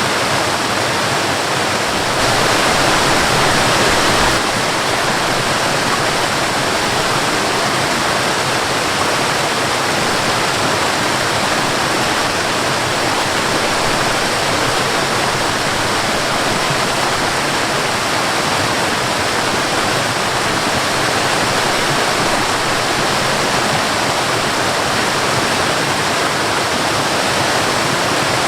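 Waterfall and river water rushing in a steady, even wash of noise, swelling slightly louder for a couple of seconds about two seconds in.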